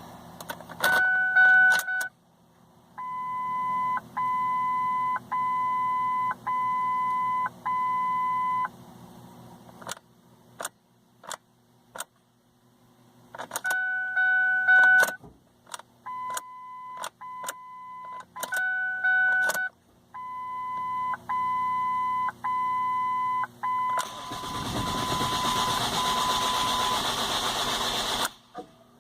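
Ford Focus dashboard warning chimes beeping about once a second in short runs, with sharp clicks of the ignition key and relays. Near the end the starter cranks the engine for about four seconds and cuts off without the engine running: the crank-no-start that the owner puts down to an intermittent PATS anti-theft fault.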